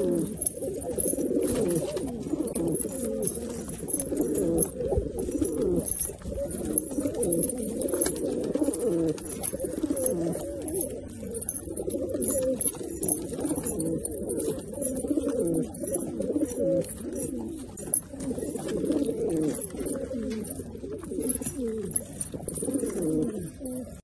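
Domestic pigeons cooing, their low coos overlapping without a break.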